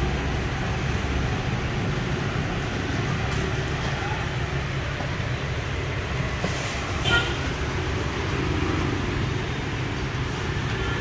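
Steady low rumble of road traffic, with a short sharp sound about seven seconds in.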